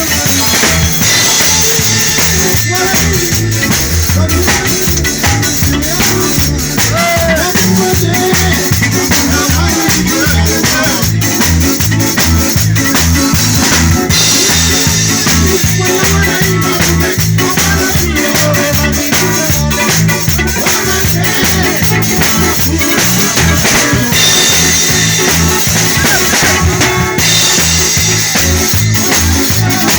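Live band music with a drum kit, shakers and a bass line playing a steady beat.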